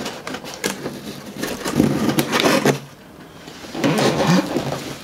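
Cardboard and paper packaging rustling and scraping as a small wrapped item is pulled out of an advent calendar compartment, with a few sharp clicks.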